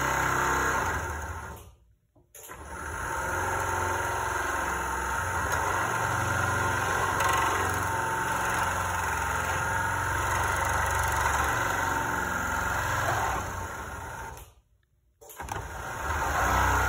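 Screw-drive garage door opener running with a steady hum as the trolley travels along the rail. It stops briefly about two seconds in and starts again, runs for about twelve seconds, then stops once more near the end before starting up again.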